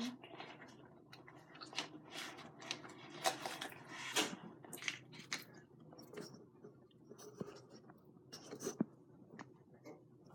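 Close-miked eating sounds: food being chewed, with irregular wet mouth clicks and smacks several times a second.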